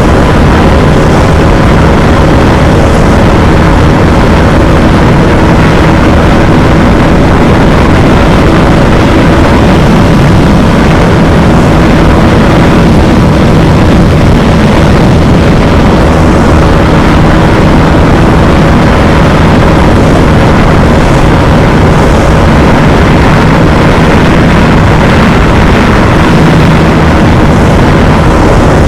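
Bajaj Dominar 250's single-cylinder engine running flat out in sixth gear at a steady high pitch near top speed, under loud wind rush.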